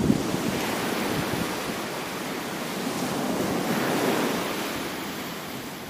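Small surf washing onto a sandy beach, a steady rush that swells about four seconds in and then fades.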